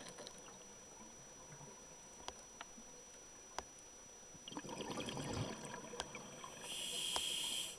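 Underwater sound: a few sharp clicks, then from about halfway a stretch of bubbling water, ending in a hiss of about a second that cuts off sharply near the end.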